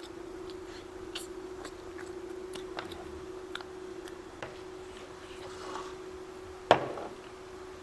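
Two people eating rice and meat by hand: soft chewing, lip smacks and small scattered clicks, over a steady hum. A louder sharp click about seven seconds in.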